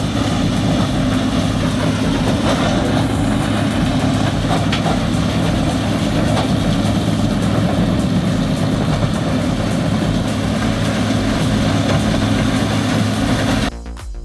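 Heavy engine-driven machinery running steadily, loud and noisy with a strong low hum; it cuts off suddenly near the end.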